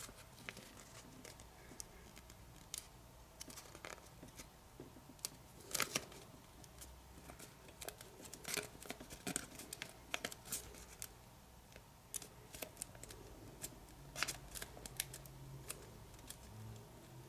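Faint, irregular crackles and ticks of thin kami origami paper being pinched and curled between fingertips.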